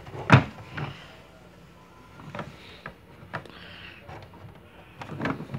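Hand handling of a plastic toy car with a plush fox in it: a sharp knock just after the start, then a few lighter clicks and taps spread through the rest.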